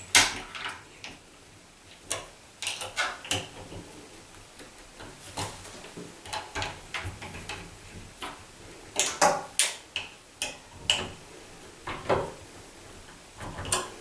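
Irregular small metal clicks and taps from a door lever handle being fitted: a hex key turning the handle's grub screw and the handle being worked, with a quicker cluster of clicks about nine seconds in.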